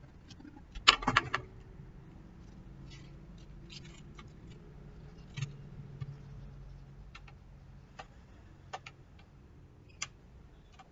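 Clicks and clatter of electric fan parts being handled during repair, with a loud burst of clattering about a second in and single clicks every second or two afterwards.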